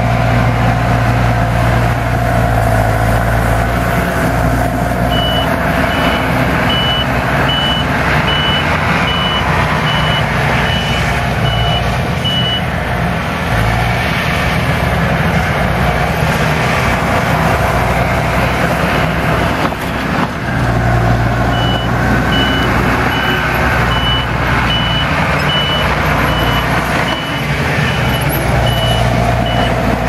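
Takeuchi compact track loaders' diesel engines running steadily while grading dirt. A backup alarm beeps at about one and a half beeps a second in two runs: one starting a few seconds in and lasting about seven seconds, and another through the last third as a loader reverses.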